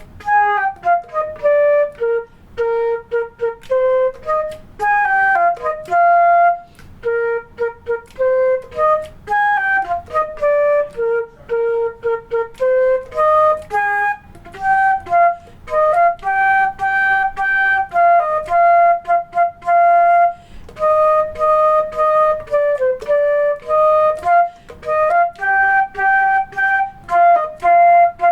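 Solo flute playing a simple beginner band melody, one note at a time with short breaks between notes, unaccompanied and sight-read.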